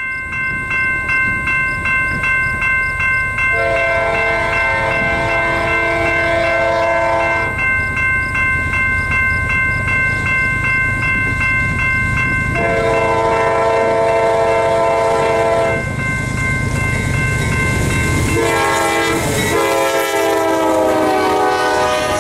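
Air horn of a lead CSX C40-9W diesel locomotive blowing the grade-crossing signal as the westbound freight approaches: two long blasts, a short one and a long one, a multi-note chord. Under it a crossing bell rings steadily and the train's rumble grows, with the wheels clacking as the locomotives reach and pass near the end.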